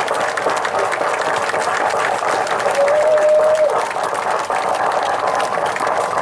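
A crowd of guests applauding, the dense clapping of many hands continuing throughout. Partway through, one voice in the crowd gives a single long held call.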